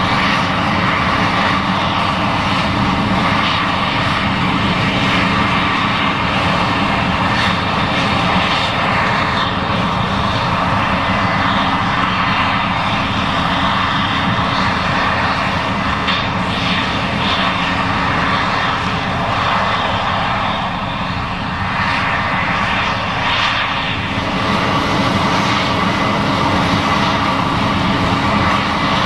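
Case IH 7140 Axial-Flow combine running steadily under load while harvesting corn, a loud continuous drone of engine and threshing machinery. It eases slightly about twenty seconds in, then picks back up.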